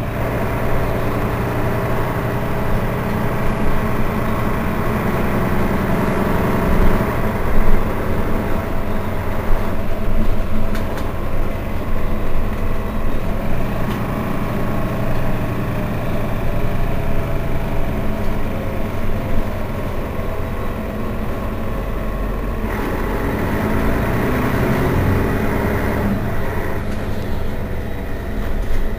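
A Mercedes-Benz Citaro Facelift city bus's diesel engine running: a steady drone with a few held tones, whose character changes about three-quarters of the way through.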